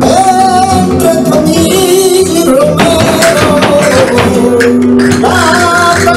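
Flamenco song with a singer's voice bending in long held phrases, while a group of dancers click castanets along with it.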